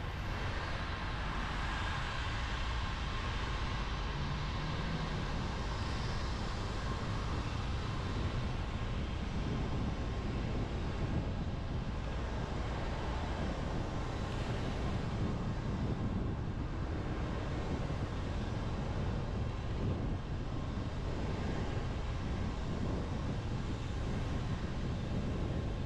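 Car driving in the rain: steady road and tyre noise on wet pavement.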